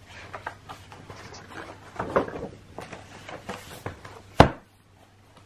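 Handling noises: a series of small knocks and rustles, ending in one sharp, loud click, after which it goes almost quiet.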